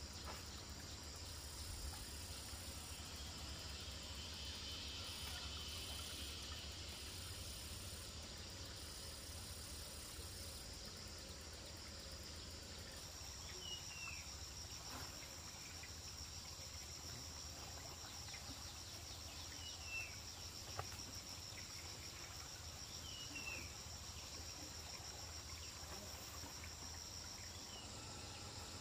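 Faint insect chorus: a high trilling that pulses at first and then settles into an even drone. A few short falling chirps and a couple of faint knocks come through it.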